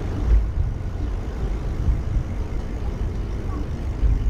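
Wind buffeting the microphone of a camera carried on a moving bicycle: a low, fluttering rumble that rises and falls in level.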